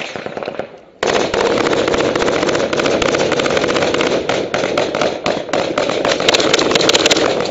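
Close-range gunfire: a few separate shots, then from about a second in a heavy, unbroken stream of automatic fire with many shots overlapping into a continuous rattle.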